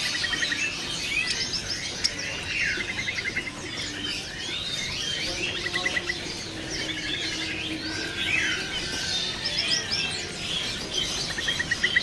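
A cage full of small songbirds chirping and twittering over each other, with many short chirps and quick rapid-fire trills.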